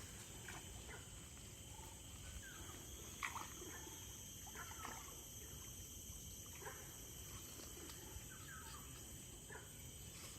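Faint outdoor ambience: scattered short bird chirps, the loudest about three seconds in, over a steady high-pitched insect drone and a low rumble.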